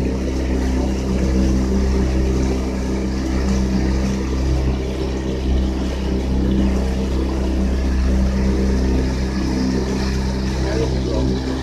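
Speedboat engine running steadily under way, with water rushing and splashing along the hull.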